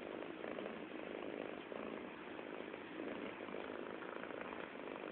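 Domestic cat purring steadily, the purr swelling and easing in a slow rhythm about once a second.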